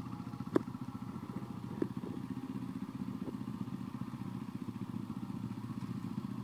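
Pit bike engine running steadily at low revs, an even fast pulsing with no revving, with two sharp clicks about half a second and nearly two seconds in.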